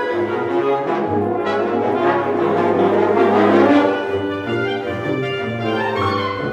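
High school concert band of woodwinds, brass and percussion playing, with the brass prominent. The music swells to a loud peak about three and a half seconds in, then eases off.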